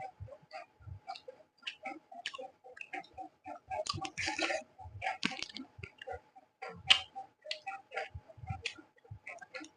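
Close-miked mouth sounds of eating rice and curry: wet chewing, lip smacks and tongue clicks coming in quick irregular succession. A longer, louder smack comes about four seconds in, and a sharp one about seven seconds in.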